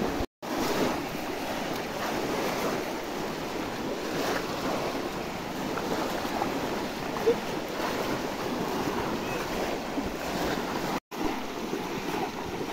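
Water splashing and sloshing as many people wade through a shallow pond, plunging conical bamboo basket traps into it, with wind on the microphone. The sound cuts out briefly twice, just after the start and near the end.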